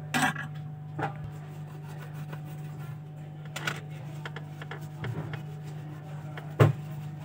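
A steady low hum under a few sharp taps and knocks from tools and hands on a repair workbench, the loudest near the end. The chip is being cleaned of flux with a soldering iron and tissue.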